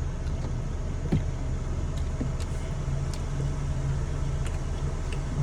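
Steady low hum of a running car heard from inside the cabin, with a few faint clicks.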